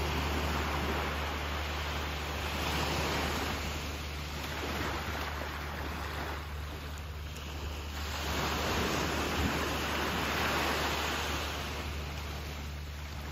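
Small waves breaking and washing up a sandy beach, the surf swelling and ebbing several times. A steady low rumble runs underneath.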